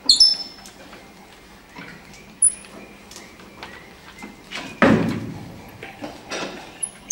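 Metal hand-tool work on a steam locomotive's front end, with a spanner worked on bolts: a few short, sharp high squeaks, and one loud metallic clunk about five seconds in that rings on for about a second.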